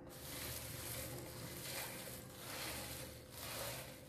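Crisp fried snack ingredients (nuts, curry leaves, flattened rice, roasted gram) pushed by hand off a newspaper-lined plate into a steel basin of mixture: a dry rustling that swells and fades about four times.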